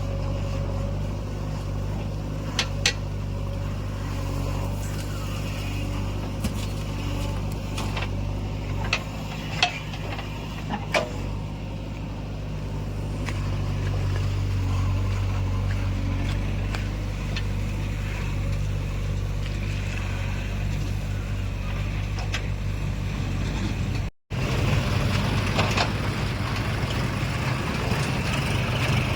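Diesel engine of a JCB 3DX backhoe loader running steadily under work while digging and loading mud, with several sharp metallic clanks from the bucket and arm.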